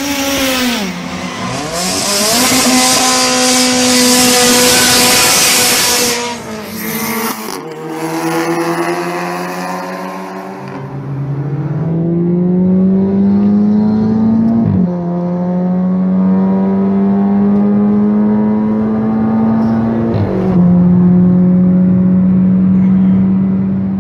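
Volkswagen 1.4 TSI turbocharged four-cylinder engine under hard acceleration, its pitch climbing through each gear. In the second half, heard from inside the cabin, the revs rise and then drop sharply at two upshifts.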